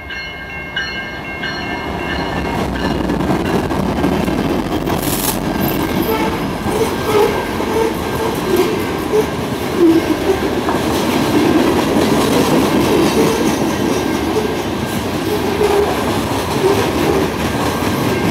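Freight train passing close by. A diesel horn blast ends in the first second, then the locomotives come up louder over a few seconds, and a long string of covered hopper cars rolls past with steady wheel rumble and clicking over the rail joints, with a sharp metallic crack about five seconds in.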